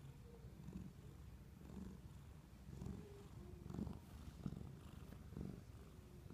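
Domestic cat purring as it is stroked under the chin, a low, soft rumble that swells and eases about once a second with its breathing.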